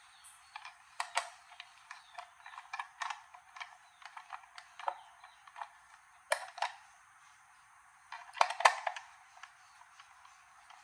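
Irregular small clicks, taps and knocks of hard objects being handled, with a louder rapid cluster of clicks about eight and a half seconds in.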